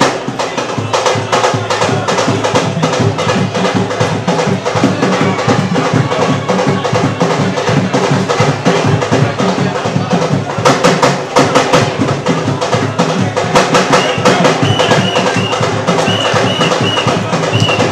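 Fast, dense drumming with many strokes a second, running without a break. A high repeated tone joins in near the end.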